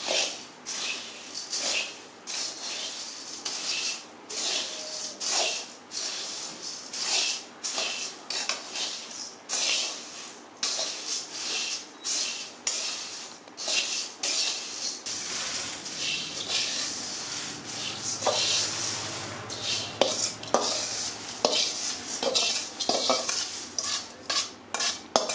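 Dry puffed rice being stirred and tossed with a steel spoon in a metal kadai: repeated rustling scrapes of the grains and spoon against the pan, roughly one stroke a second, with small clinks of metal on metal. A low steady hum comes in about halfway.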